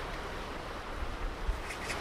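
Ocean surf washing steadily on a beach, a continuous wash of noise with a low rumble underneath. Near the end a rapid run of short, high scratchy sounds begins, about five or six a second.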